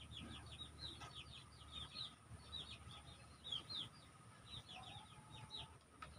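Chicks peeping faintly: many short, high, falling chirps in quick runs.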